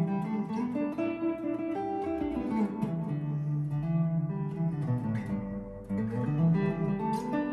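Wildwood Thin Skin '59 Fender Stratocaster played through an Allen Amplification Classic 10 amplifier with analog delay and plate reverb, heard from the amp's cabinet through the room rather than miked. He plays a flowing run of picked notes and chords, easing off briefly about six seconds in before carrying on.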